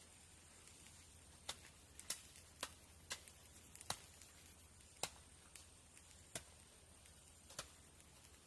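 About ten light, sharp clicks or taps at irregular intervals, over a faint steady hum.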